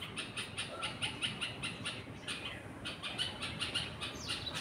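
Young bulbul chirping: a fast string of short, high calls, several a second, going on steadily.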